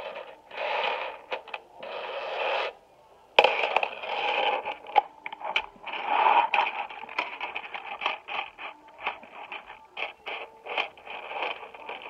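A chain of small magnetic balls rattling and scraping as it is dragged across a wooden floor, then many quick sharp clicks as the balls snap together and are pulled apart.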